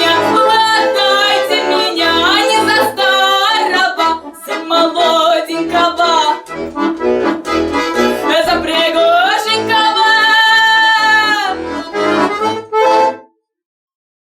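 Accordion playing a lively folk tune in full chords, ending about 13 seconds in with a short final phrase and then silence.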